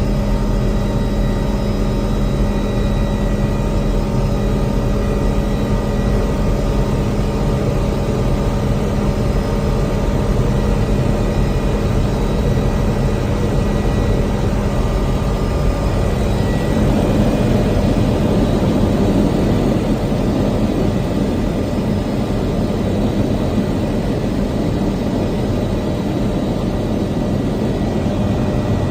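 Steady drone of an aircraft engine, with several fixed tones over a rushing noise, swelling slightly about two-thirds of the way through.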